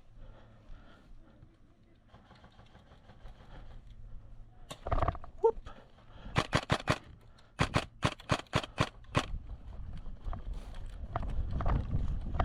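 Airsoft guns firing in an indoor close-quarters game: a loud knock about five seconds in, then two quick strings of sharp shots, about four and then about seven. A low rumbling noise builds near the end.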